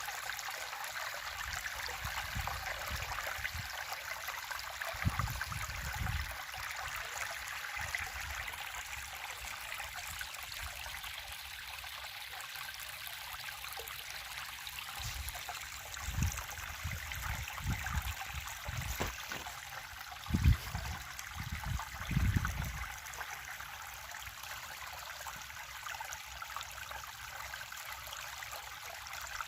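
River water running in a steady rush, with a few brief low rumbles breaking in about five, sixteen and twenty seconds in.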